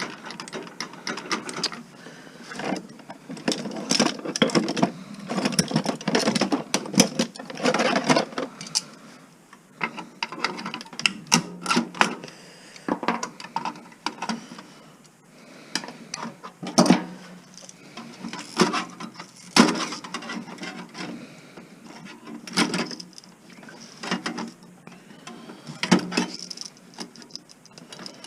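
Pliers and other hand tools working on electronic parts and a metal chassis, snapping components off: a dense run of clicks, scrapes and small metal clatters for the first eight seconds or so, then sparser sharp snaps and knocks.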